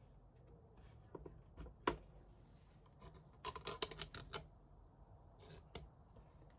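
Clamps being handled and set on a glued-up wooden box: scattered sharp clicks and light knocks, with a quick run of clicks about three and a half seconds in.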